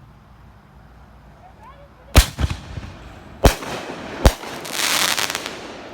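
Asian 'full boat' consumer aerial fireworks going off: a sharp bang with a quick second report about two seconds in, two more bangs about a second apart, then a crackling burst that fades away.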